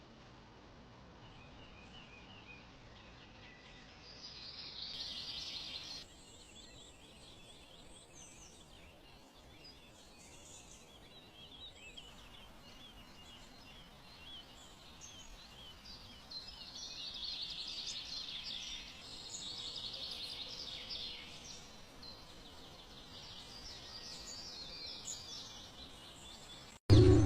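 Faint outdoor ambience with birds chirping high up. The chirping grows louder about four seconds in and again from about sixteen seconds, then stops abruptly at a cut.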